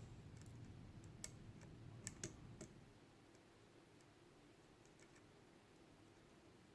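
Faint, scattered clicks of a lock pick and tension wrench working the pins of a Mul-T-Lock Jr. padlock core held in a deep false set, a few clicks in the first three seconds, then near silence.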